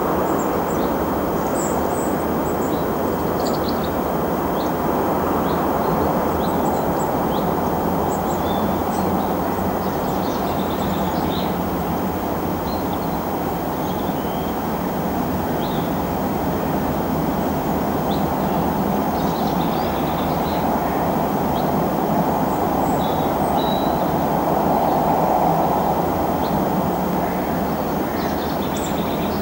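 Steady rush of a waterfall, with small birds chirping briefly here and there above it.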